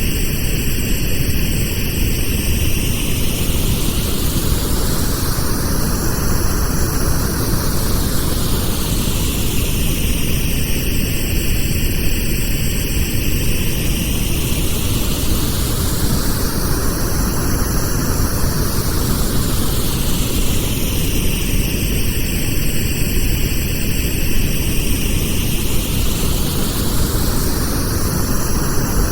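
Pink noise: a steady hiss weighted toward the low end, with a slow sweeping whoosh like a phaser that rises and falls about every eleven seconds.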